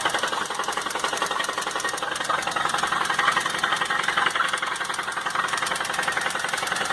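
Maruti Suzuki SX4 engine running, very rough, with a rapid steady knocking: connecting-rod bearing knock from a worn, seizing rod bearing on the number 3 cylinder.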